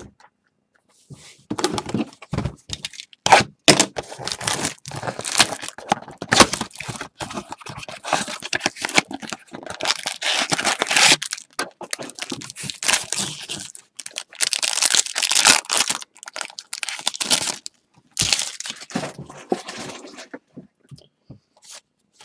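A 2020 Bowman baseball card pack's wrapper being torn open and crumpled: irregular crinkling and ripping that goes on in bursts for most of the stretch, then stops a couple of seconds before the end.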